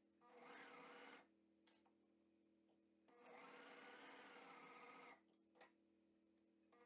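Serger (overlock machine) stitching faintly in two short runs, about a second long near the start and about two seconds long in the middle, sewing stretch swim fabric with clear elastic.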